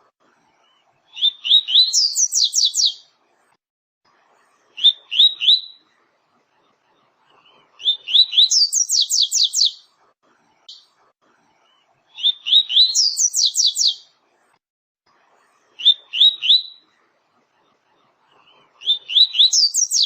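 A papa-capim (coleiro), a Brazilian Sporophila seedeater, singing its 'tui-tui' song in repeated phrases. Each phrase is a few quick high notes followed by a run of rapid falling whistled notes. Six phrases come a few seconds apart, with short pauses between them.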